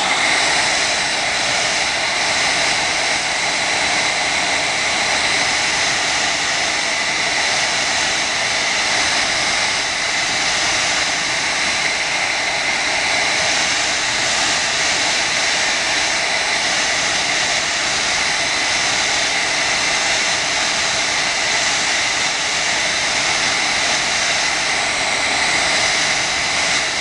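Handheld hair dryer running steadily, blowing hot air onto a phone screen to soften the adhesive under the glass; a rush of air with a thin steady whine.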